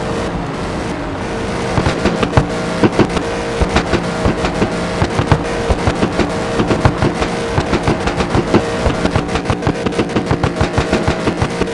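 Car engine held at high revs while the car is drifted in circles, with a rapid crackle of sharp pops, several a second, setting in about two seconds in.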